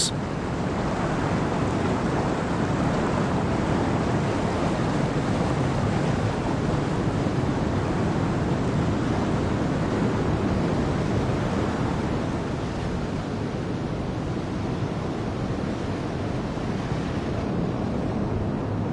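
Steady rush of wind and sea water from a small boat under way, with wind buffeting the microphone; the hiss thins a little near the end.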